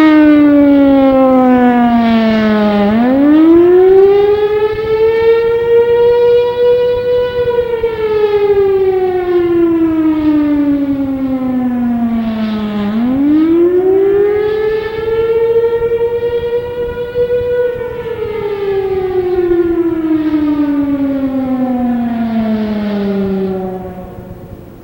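Federal Signal Thunderbolt 1000 civil defense siren sounding the attack warning signal: a wail that rises and falls about every ten seconds, the warning of an enemy attack, here run as a monthly test. It winds down and fades out near the end.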